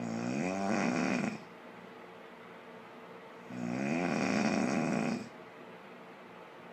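A woman snoring loudly: two long snores, each lasting about a second and a half, with a pitch that wavers up and down. The first comes right at the start and the second about three and a half seconds in, with quieter breathing between.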